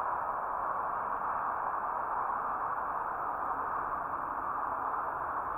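A steady, even hiss that holds at one level throughout, with nothing else standing out.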